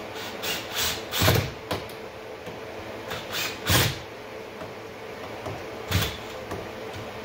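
Cordless drill driving 1.5-inch drywall screws through a 3-inch PVC pipe into a wooden board, in short bursts: several quick runs in the first two seconds, a few more around three to four seconds in, and one near six seconds. The loudest bursts come about a second in and just before four seconds.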